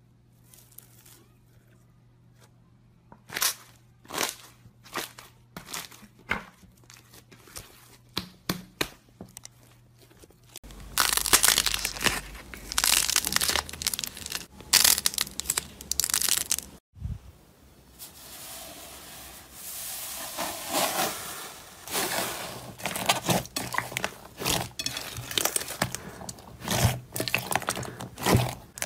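Slime pressed through a wire mesh strainer, with scattered small sharp pops. From about ten seconds in, slime is squeezed, kneaded and stretched by hand, giving dense crackling and popping that comes and goes in waves.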